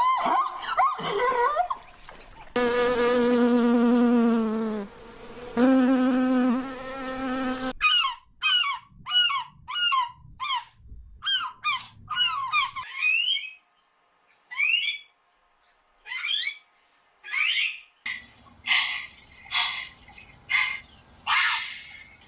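A sequence of animal sounds: first a steady insect-like buzz lasting about five seconds, then a run of short, high, falling chirps, then a string of harsh, rasping calls.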